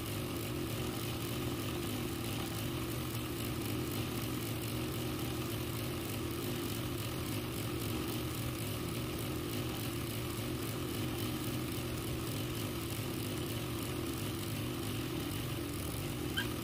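Ranew 130 industrial zigzag sewing machine running steadily at speed, its needle stitching continuously while fabric in a hoop is moved by hand for free-motion embroidery.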